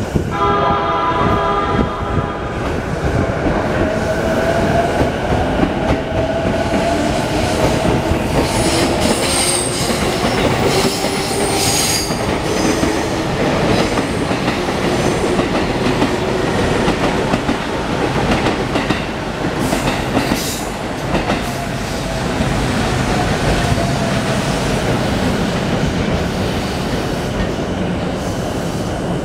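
JR East E233-1000 series electric commuter train pulling away from the platform. Its traction motors give a whine that rises in pitch as it accelerates, over the clatter and rumble of its wheels on the rails. A high wheel squeal comes in about nine to twelve seconds in.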